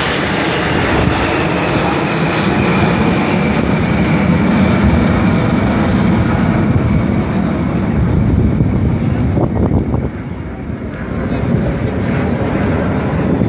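Jet engines of a formation of small jet aircraft flying past and away, a loud steady roar with a falling whine over the first several seconds. It dips briefly about ten seconds in.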